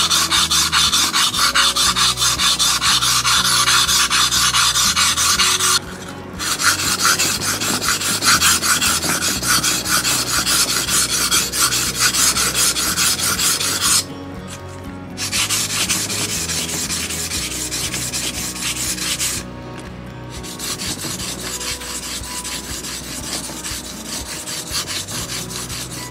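Steel blade of a tailor's shears rubbed back and forth on a wet waterstone during sharpening: a steady rasping scrape in four long spells with short pauses between them, the last two quieter.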